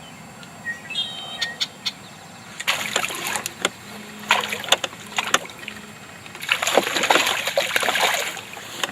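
Water splashing in two bouts, the first about three seconds long and the second about two, as a hooked bass thrashes at the surface while it is reeled in.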